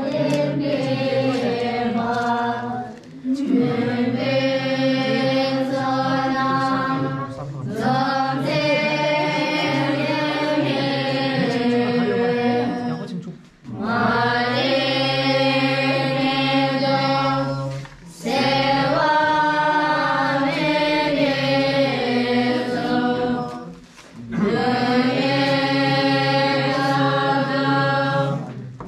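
A group of voices chanting a prayer in unison, in long sustained phrases broken by short pauses every four to six seconds.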